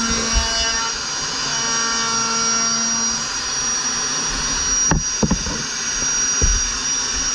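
Electric router with a tungsten-grit bit running steadily with a high whine while it is pushed along a rail jig, cutting the foam of a surfboard blank. A few knocks sound about five seconds in and again a little later.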